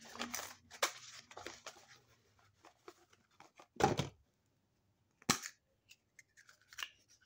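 Foil wrapper of a chocolate surprise egg crinkling and tearing as it is opened, with a louder crackle about four seconds in and a sharp snap a little after five seconds.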